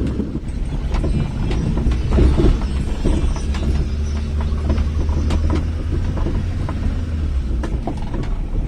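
Hyundai Santro Xing hatchback being driven over a rough road: a steady low engine and road drone with scattered clicks and rattles.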